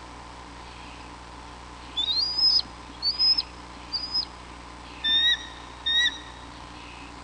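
A small pet animal's high whistled calls, five in all: three rising whistles about a second apart, then two shorter, lower calls near the end.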